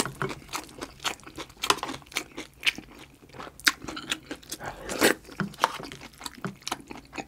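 A person chewing food close to a clip-on microphone: irregular wet crunches and smacks, several a second.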